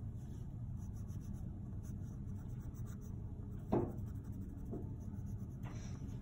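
Colored pencil scratching on paper as the green stripes of a candy drawing are shaded in, over a steady low hum. A short sharp knock sounds a little past halfway, with a couple of fainter ticks after it.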